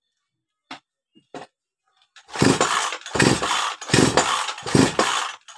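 A 58cc two-stroke chainsaw being pull-started: two light knocks, then about two seconds in, four quick pulls on the recoil starter, each turning the engine over without it catching. It fails to start because its piston is scored.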